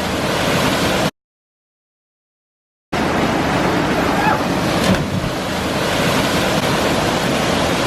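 Steady roar of rushing water, a waterfall or fast river, filling the sound with an even hiss. It drops out to dead silence about a second in for roughly two seconds, then resumes.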